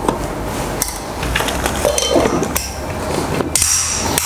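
Stainless steel mixer-grinder jars and lids being handled: about half a dozen knocks and metallic clinks as a jar is lifted off the motor base and another is picked up. One clink rings briefly about two seconds in.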